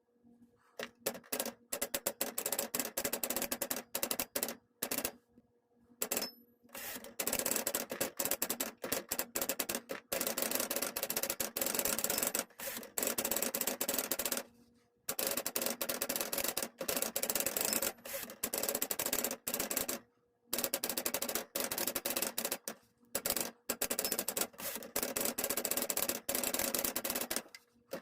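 Typing on a 1964 Sears Challenger II manual typewriter: rapid runs of key and typebar strikes clacking against the platen, broken by several short pauses.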